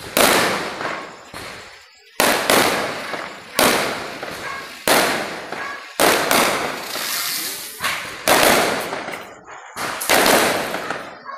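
Diwali firecrackers going off one after another, about ten loud bangs roughly a second apart. Each bang echoes and fades before the next.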